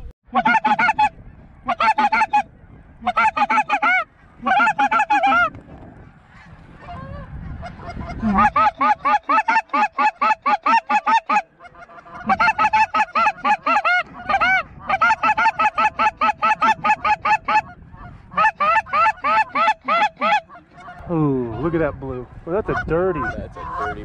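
Goose calling: runs of quick, loud honks, several a second, in bursts of one to three seconds with short breaks between.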